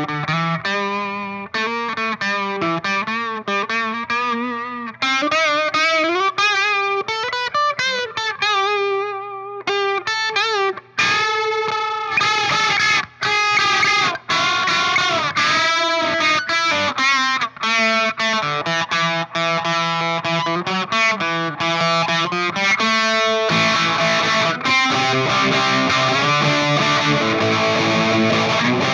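Electric guitar played through distortion and effects, noodling on single notes with wide vibrato and bends. About midway it moves to heavier sustained distorted chords, which thicken further near the end.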